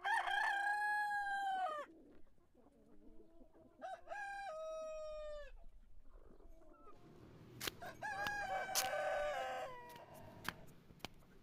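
Rooster crowing three times, each crow a drawn-out call of about two seconds that drops in pitch at the end, followed by a few sharp clicks near the end.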